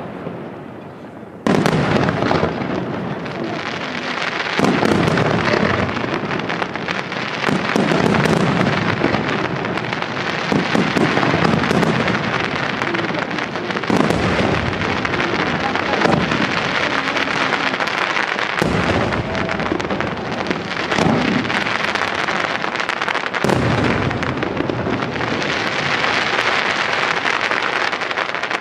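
Aerial firework shells bursting in a dense, overlapping barrage with crackling throughout. A brief lull at the start, then it picks up again about a second and a half in.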